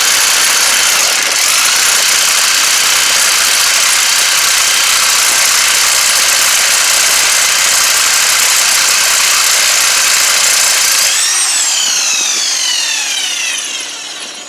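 Bauer 1/2 inch corded electric impact wrench running at full speed, taking a lug nut off a van wheel. Near the end the trigger is let go and the motor winds down in a falling whine.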